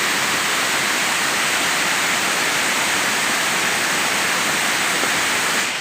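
Steady, unbroken rush of a large waterfall's falling water.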